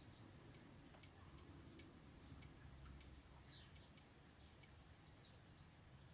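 Near silence: faint room tone with a few faint scattered clicks.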